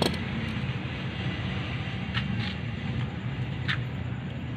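A few sharp metal clicks as a hand tool works at the lock in the centre of a Honda XRM110 motorcycle's clutch drum. A steady low hum runs underneath.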